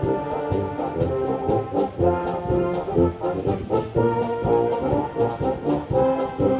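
A brass band playing, with held brass chords over a pulsing bass line from the tubas and short drum beats.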